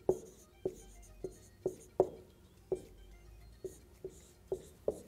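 Dry-erase marker writing on a whiteboard: a dozen or so irregular sharp taps as the pen strikes the board for each stroke, each with a short ring from the board.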